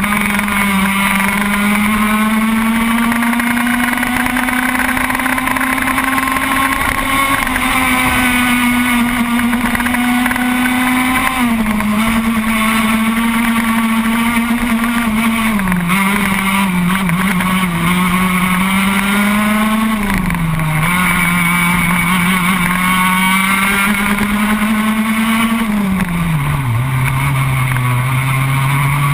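A racing kart's engine heard onboard at speed, running at high revs with its pitch dropping sharply about four times as the kart slows for corners, then climbing steadily again as it accelerates out.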